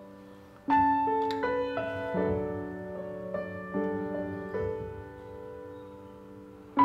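Background piano music: a soft, slow piece of single notes and chords that ring on and fade, a new note coming every half second or so.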